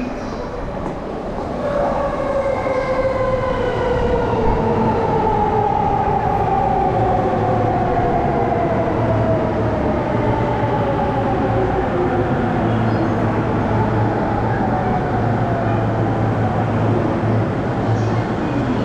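Chuo-Sobu Line electric commuter train pulling into the platform. Its motors give an electric whine that slides slowly down in pitch as the train brakes, over the rumble of the wheels.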